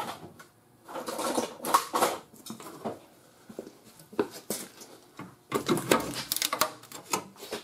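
Pliers clinking and scraping against the cut steel rocker panel as its edge is gripped and bent up: irregular metallic clicks and scrapes, sparse at first and busiest in the last two seconds.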